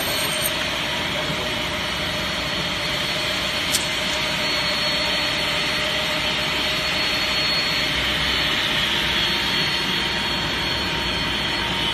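Bottom-arbor rip saw with automatic feed running steadily while ripping wooden boards: a constant machine noise with a thin high whine over it, and one sharp click about four seconds in.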